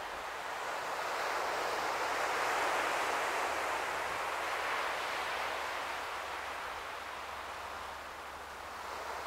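Ocean surf washing onto the shore: a rushing noise that swells over a few seconds and then fades.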